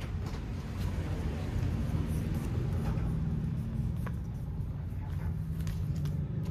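Steady low engine-like rumble, as of a motor vehicle, with a few faint crinkles of paper being creased.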